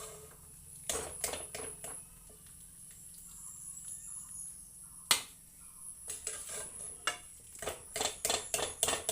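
Metal spoon scraping and knocking against a cooking pan as cooked food is scooped out, in scattered clinks. One sharp knock comes about five seconds in, and a quick run of clinks comes near the end.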